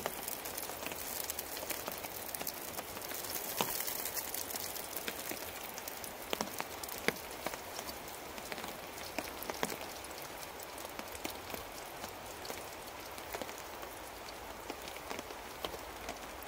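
Rain falling on a tarp overhead: a steady hiss with many scattered sharp ticks of drops.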